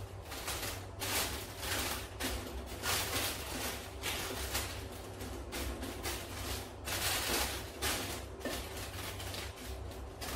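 Wooden spoon scraping and pressing buttered biscuit crumbs into a metal baking tray lined with baking paper, the paper rustling: a run of irregular scrapes and rustles.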